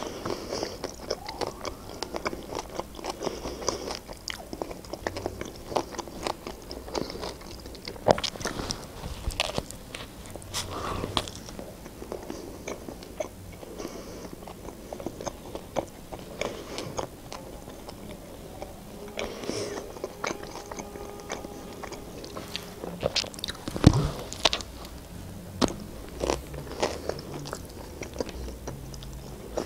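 A person biting into and chewing a shawarma at close range: wet smacks and clicks of chewing, irregular throughout, with one louder click near the end.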